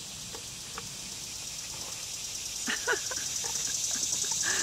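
Outdoor insect chorus: a steady high buzz that swells gradually louder, with a few faint clicks about halfway through.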